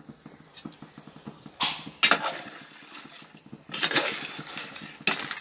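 A metal ladle stirring crab gravy in an aluminium pot, scraping and knocking against the pot in bursts about a second and a half in, again around four seconds, and briefly near the end, over the low bubbling of the simmering gravy.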